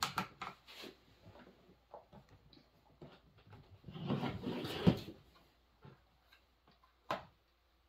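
Plastic housing and cover parts of a new Proyama chainsaw being handled: a few light clicks, then a longer rattle and scrape about four seconds in that ends in a sharp knock, and one more click near the end.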